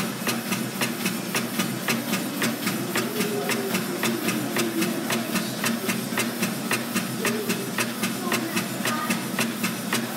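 Belt-driven workshop machinery running off overhead line shafts with flat belts and pulleys: a steady hum with a rapid, even clacking, several strokes a second.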